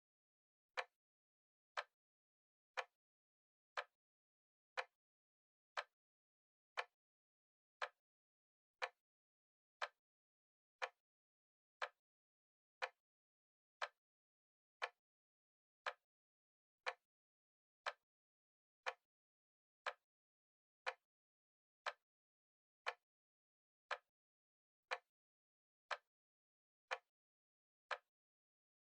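Clock ticking steadily, one short, sharp tick a second, counting the seconds of a timer.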